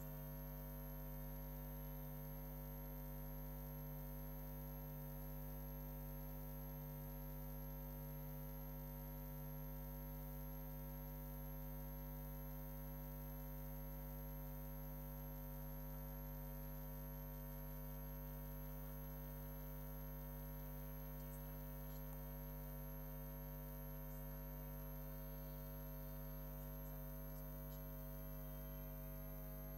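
Steady electrical mains hum and buzz, made of many fixed tones stacked from a low drone upward, with a thin high whine above. It stays unchanged, and no speech is heard over it.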